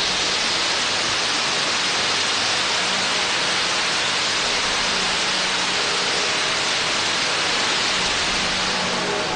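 Firework fountains on a fireworks-laden cart spraying sparks together: a steady, dense hiss with no separate bangs.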